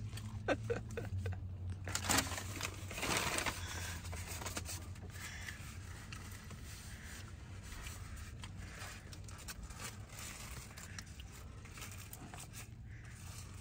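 Aluminium foil sandwich wrapper crinkling as it is handled, loudest a couple of seconds in and then in fainter rustles, over a low steady hum.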